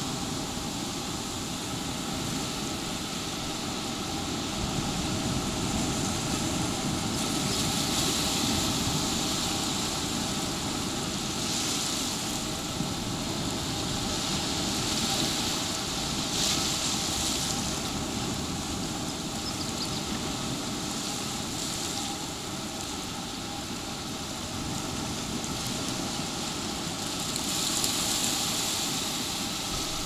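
Ocean surf breaking and washing up the sand: a continuous hiss that swells every few seconds as waves come in, over a low rumble, with a faint steady hum underneath.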